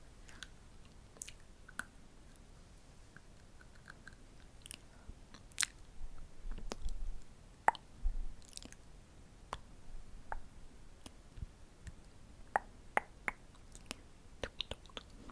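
Close-miked ASMR mouth sounds: scattered wet clicks and smacks of the lips and tongue, some single and some in short clusters.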